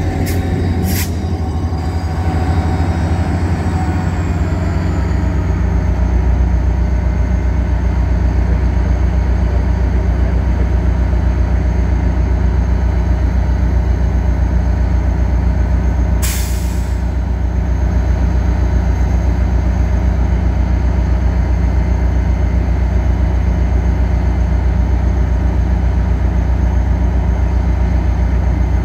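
Caltrain F40PH-2 diesel locomotive running with a steady low rumble as the train slows to a stop at the platform, its whine falling in pitch over the first few seconds and then holding. Short sharp hisses of air come about a second in and again about halfway through, typical of the air brakes venting.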